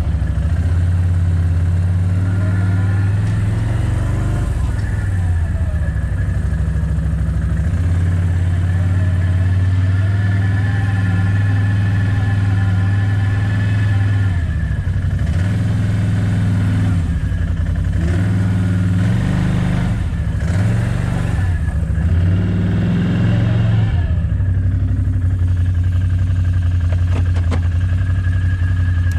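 Small petrol engine running steadily at one speed, its pitch dipping briefly several times in the second half as if taking load.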